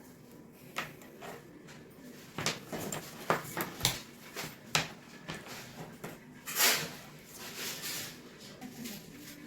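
Handling of a microphone cable and its plugs: a string of sharp clicks and taps, most of them between about two and five seconds in, with a short rustle a little past the middle.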